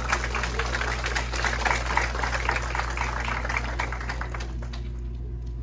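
Audience applauding, a dense patter of claps that dies away about four and a half seconds in, over a steady low hum.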